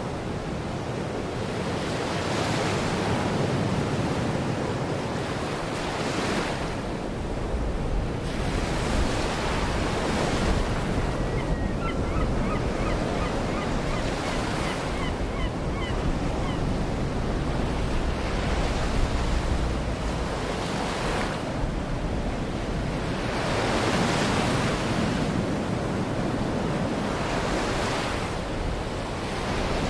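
Baltic Sea surf: waves washing ashore in surges every two to three seconds, with wind rumbling on the microphone. A few faint bird calls come about halfway through.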